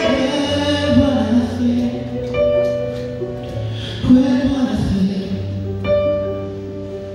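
Live band playing an instrumental break in a pop ballad: held keyboard chords over a steady bass, changing chord a few times.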